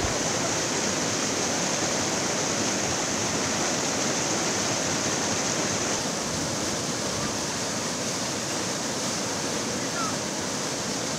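Fast-flowing muddy floodwater rushing and churning, a steady dense noise of moving water.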